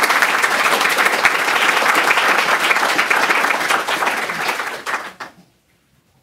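Audience applauding: dense, steady clapping that fades out and stops about five seconds in.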